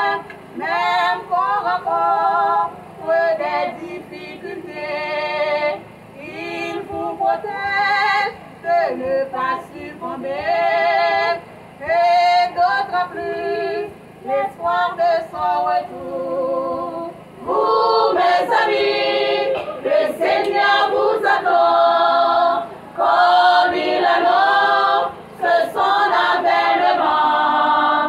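Women's choir singing without instruments, several voices together in sung phrases. About halfway through, the singing grows louder and fuller.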